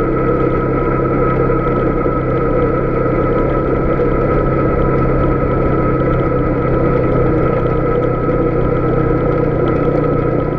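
Polaris Sportsman 570 ATV's single-cylinder engine running at a steady speed while riding over a rocky dirt road, with several held steady tones over its low rumble.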